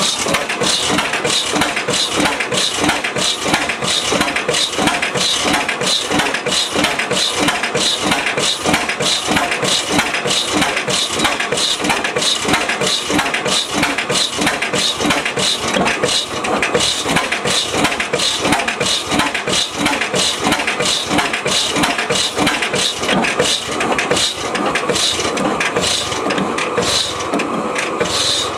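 1905 Reid 15-horsepower hot-tube two-stroke oilfield engine running steadily with no load on it, its firing beating in an even, unbroken rhythm. A steady whine joins in about three-quarters of the way through.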